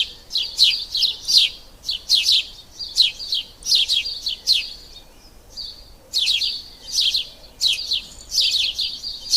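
Sparrows chirping: rapid runs of short, sharp chirps, several a second, with a pause of about a second just past the middle.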